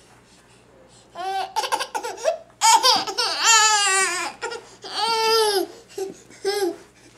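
A baby squealing and laughing in a string of high-pitched calls, starting about a second in, the longest a wavering squeal near the middle.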